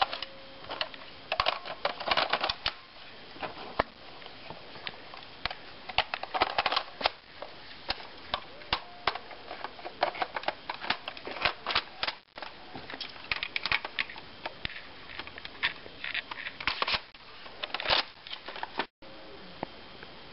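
Irregular plastic clicks and rattles of a toy Nerf blaster being handled, in short clattery clusters.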